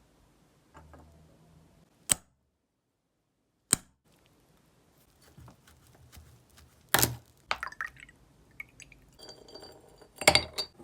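Scattered sharp clicks and metallic clinks of small hard objects being handled and set down: two single clicks with a stretch of dead silence between them, then a quick cluster of clinks and rattles about seven seconds in and again near the end.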